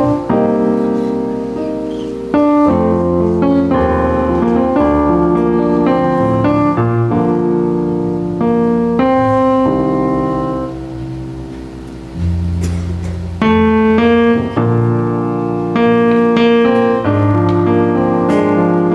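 Keyboard music playing slow, held chords that change every second or two over low bass notes.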